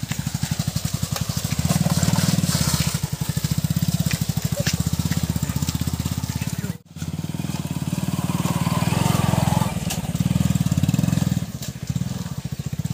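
Small commuter motorcycle engine working up a rough dirt track, the throttle opening and easing off several times. The sound cuts out briefly about seven seconds in.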